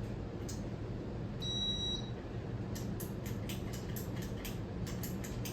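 Ceiling fan's controls being worked: a short high electronic beep about a second and a half in, then a quick run of clicks, about five a second, over a steady low hum.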